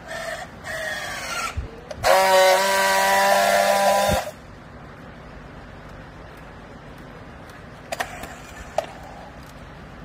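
Battery-powered handheld strapping tool working a plastic baling strap: its motor runs twice briefly as it tensions the strap, then gives a louder steady buzz for about two seconds as it friction-welds the strap joint. Two sharp clicks follow near the end.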